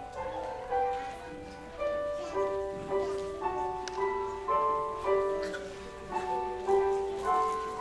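Grand piano playing a slow, gentle melody over chords, with notes struck about twice a second and left to ring.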